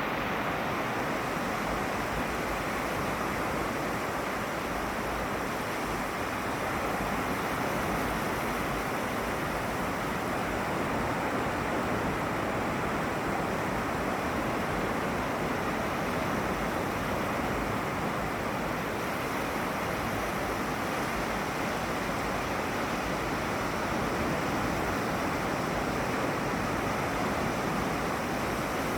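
Ocean surf washing steadily, an even hiss of water with no single breaker standing out.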